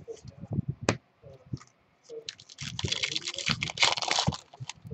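Card handling clicks in the first second, then a trading-card pack's foil wrapper being torn open and crinkled for about two seconds.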